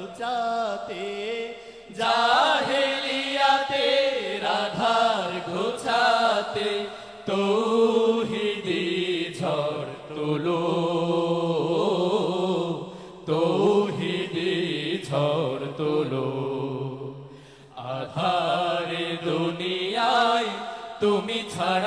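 A single voice chanting a slow, ornamented melody in long held notes, pausing briefly between phrases, as in Islamic devotional chanting.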